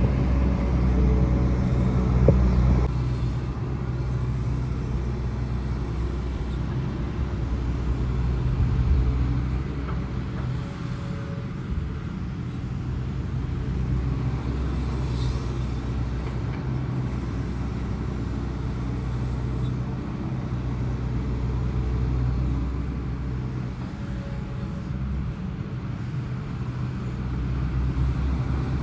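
Hitachi Zaxis hydraulic excavator's diesel engine running under digging load, a steady low drone. It is louder and fuller for the first three seconds or so, then settles to an even working note with small swells.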